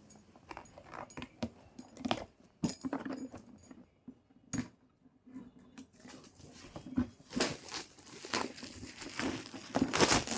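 Handling noise of a gift being unwrapped and opened: scattered rustling, crinkling and light clicks, busier near the end.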